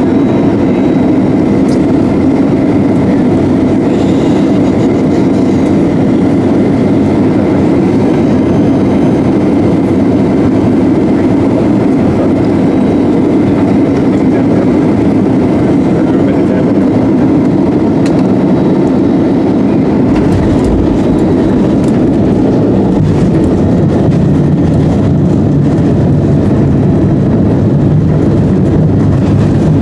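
Airliner cabin noise: a loud, steady rumble of engines and airflow. About twenty seconds in, a deeper low rumble joins it.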